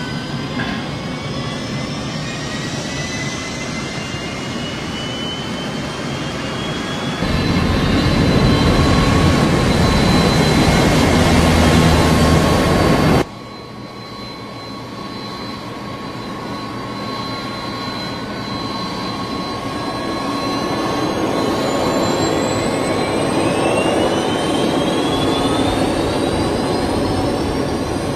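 Jet airliner engines spooling up at engine start: whines climbing in pitch over a steady turbine whine, growing louder about seven seconds in. About thirteen seconds in the sound drops suddenly to a lower level, then builds again with fresh rising whines.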